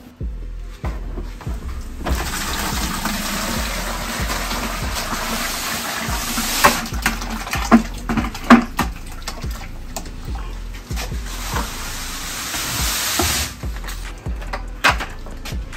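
Water and old neutralizer media pouring out of a tipped-over neutralizer tank into a plastic bucket: a steady rushing pour for about eleven seconds that stops suddenly. A few knocks come midway through the pour.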